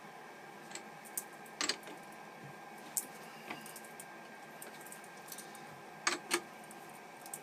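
Sharp metallic clicks and clinks of a chuck key and steel jaws as a workpiece is adjusted in a four-jaw lathe chuck: a handful of separate clicks, the two loudest close together near the end. A steady faint hum runs underneath.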